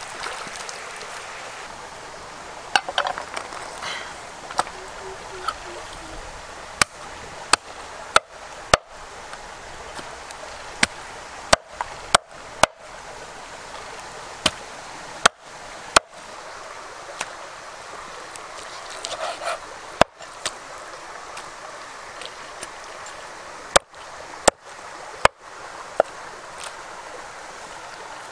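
A stream running steadily, broken by single sharp knocks of a knife chopping on a wooden chopping board, spaced irregularly a second or more apart.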